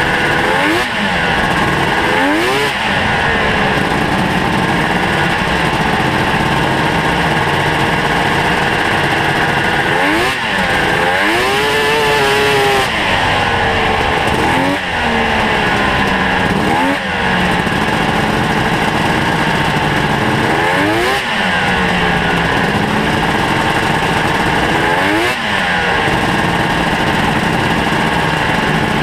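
Ski-Doo Mach Z snowmobile's two-stroke engine, ported by the owner, running under way with the revs rising and falling again and again as the throttle is worked. About eleven seconds in it holds high revs for a couple of seconds before dropping back.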